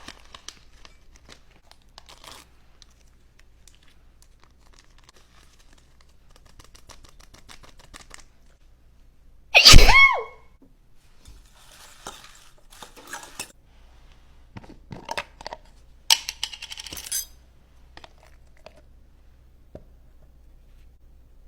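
A person sneezes once, loudly, about ten seconds in, set off by pepper. Around it are quieter kitchen handling sounds: crinkling, light taps and clicks.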